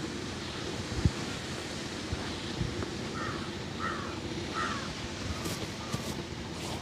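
A crow cawing three times in quick succession, about three to four and a half seconds in, over steady outdoor background noise. A single sharp knock comes about a second in.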